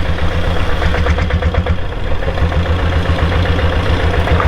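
Royal Enfield Diesel Bullet's single-cylinder diesel engine running with a steady, evenly pulsing chug.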